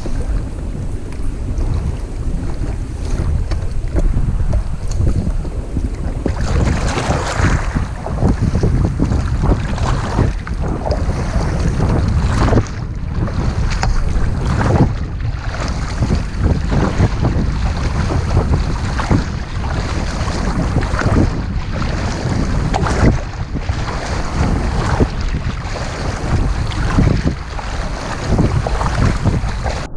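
Wind buffeting the microphone on a moving kayak, with water splashing against the hull in a repeating pattern roughly once a second from about six seconds in.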